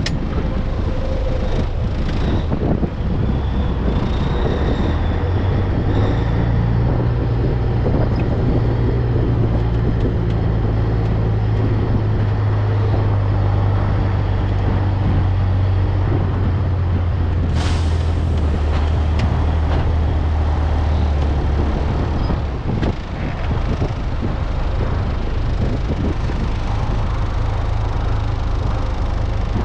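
Peterbilt cabover's Caterpillar 3406B diesel engine running under way, a steady low drone that steps up in pitch about six seconds in and settles lower again after about sixteen seconds. A short sharp noise comes about seventeen seconds in.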